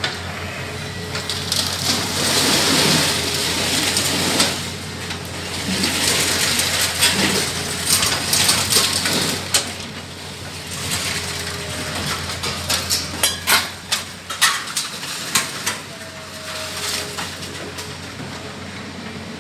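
Excavator with a lifting magnet handling scrap iron: a steady engine drone under long spells of rattling and scraping metal, with a quick run of sharp clanks past the middle.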